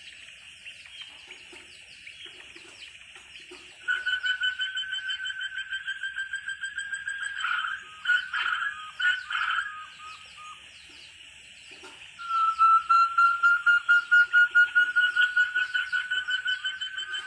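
Forest quail (puyuh hutan) calling: a long run of quick, repeated whistled notes, about four a second, slowly rising in pitch. It starts about four seconds in, breaks off near ten seconds and starts again louder about twelve seconds in, over steady high-pitched chirping and a thin steady tone.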